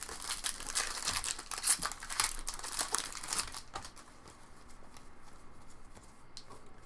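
Crinkling and tearing of foil trading-card pack wrappers, dense for about the first four seconds, then dying down to light handling noise with a single click near the end.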